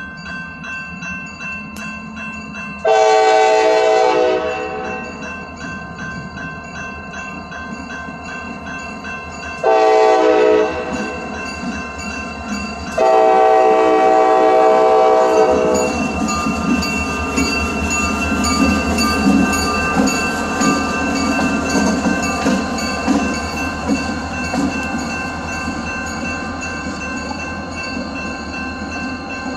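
CSX diesel locomotive's air horn blowing for a road crossing: a long blast about three seconds in, a short one near ten seconds, and another long one at about thirteen seconds. The locomotive's diesel engine and wheels on the rail then run loudly as it rolls past, while a crossing bell rings steadily.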